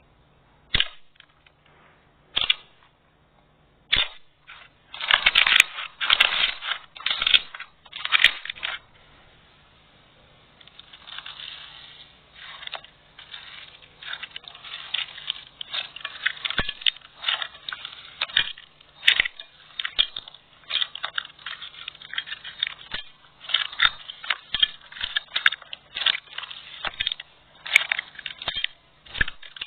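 Slime being handled, with sticky crackling and popping: a few single clicks at first, then louder squishing bursts, then a dense run of rapid pops and crackles.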